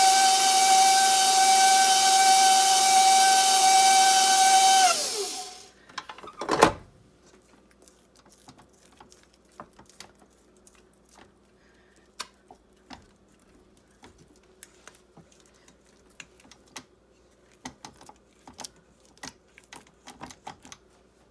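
KitchenAid Deluxe Edition tilt-head stand mixer running its flat beater through stiff choux pastry dough, a steady motor whine. About five seconds in it is switched off and winds down, falling in pitch. A loud knock follows, then faint clicks and scrapes as the dough is scraped down in the bowl by hand.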